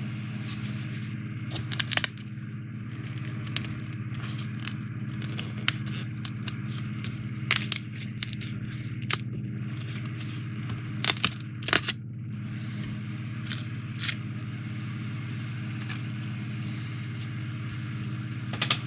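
Die-cut foam-board puzzle pieces being pressed out of their sheet: scattered sharp pops and snaps as pieces break free, with scraping as the sheet is handled, some in quick clusters. A steady low hum sits underneath.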